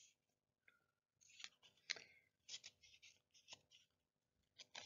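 Near silence with a few faint, short clicks and rustles.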